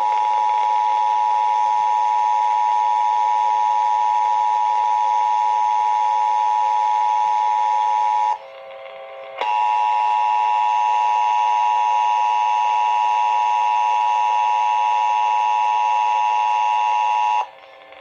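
Emergency Alert System attention signal: the steady two-tone (853 and 960 Hz) alert sounds for about eight seconds, drops out for about a second, then sounds again for about eight seconds and cuts off just before the end. It is the signal that comes before the spoken Required Monthly Test message.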